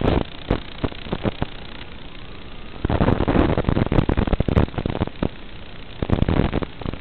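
Hiss and crackle of radio static on the analog FPV video link's audio, surging louder about three seconds in and again near the end as the video signal breaks up.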